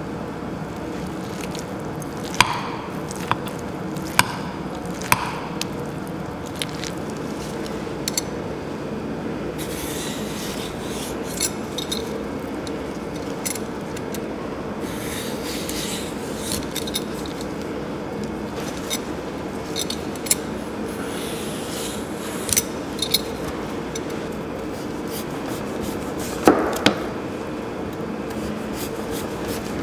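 A metal spoon clinking a few times against a glass bowl, then a steel Y-peeler scraping the skin off a Korean radish in repeated short rasping strokes. Near the end a kitchen knife cuts down through the radish onto a cutting board.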